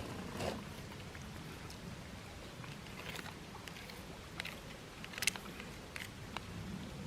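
Cutlery clicking and scraping against dishes during a meal, in scattered light taps, the sharpest about five seconds in.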